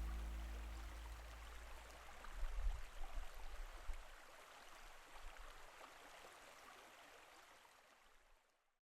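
The last low bass note dies away, leaving a faint, steady outdoor hiss with a few low rumbles between about two and four seconds in. It fades out to silence near the end.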